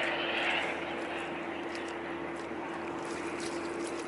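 Steady low hum of a boat's engine over wind and water noise, with a brief splashing hiss in the first half second.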